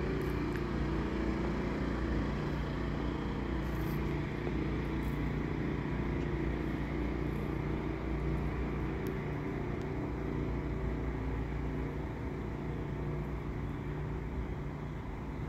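A steady low mechanical hum like an idling engine, holding the same pitch and easing slightly near the end.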